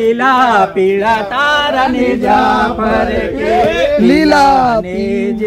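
Men singing a Gujarati folk song with long held, wavering notes.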